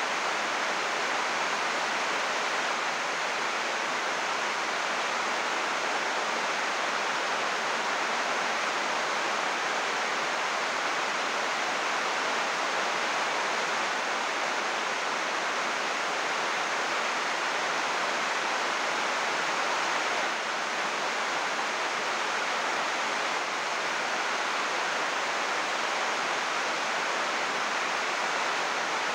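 Heavy rain falling on a greenhouse roof of 80-micron UV plastic sheeting, a steady dense hiss with no let-up.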